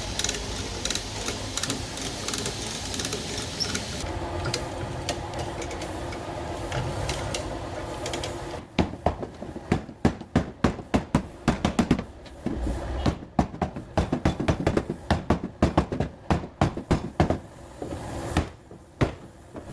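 A steady mechanical noise for about eight seconds, then about ten seconds of rapid, irregular knocks from the car's sheet-metal body being tapped back into shape during panel repair.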